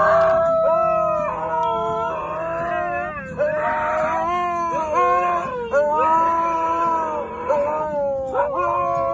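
Husky howling: a string of long, wavering howls that bend up and down in pitch, broken by short pauses every second or so.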